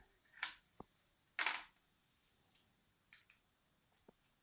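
Sticky homemade glycerin slime being kneaded and pulled in the hands: a few short, faint sticky squelches, the loudest about a second and a half in.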